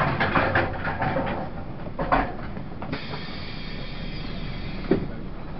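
Running noise inside a Taiwan Railways push-pull Tze-Chiang express on the move: a steady low rumble with irregular clicks and rattles. A high, steady whine sets in about three seconds in and lasts about two and a half seconds. Two sharp knocks come, about two seconds in and near the end.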